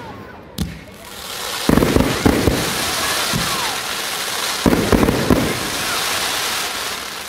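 Aerial fireworks shells bursting overhead: a sharp bang just under a second in, then clusters of heavy booms about two and five seconds in, with a dense crackling hiss from glittering crackle stars running between them.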